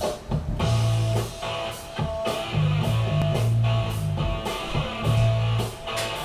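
Rock music with strummed electric guitar and a drum kit.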